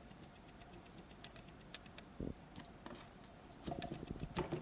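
Small plastic K'Nex figure pieces clicking faintly as they are handled and fitted together, with a soft knock a little over two seconds in and a quicker run of clicks near the end.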